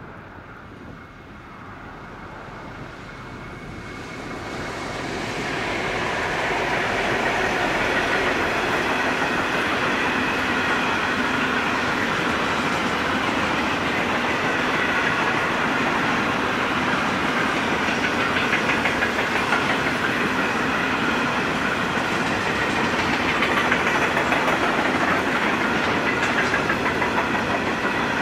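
Pacific National grain train with two diesel locomotives approaching and passing, growing louder over the first six seconds. The grain wagons then roll by with a steady rumble and clatter of wheels on rail.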